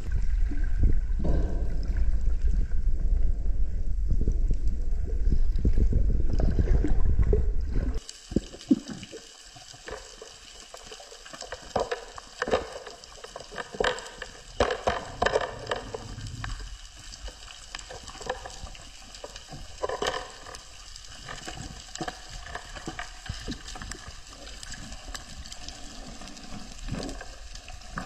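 Underwater sound picked up by a diver's camera: for the first eight seconds a loud, low rush of water moving past the housing, then, after a sudden cut, a quieter underwater background with scattered crackling clicks.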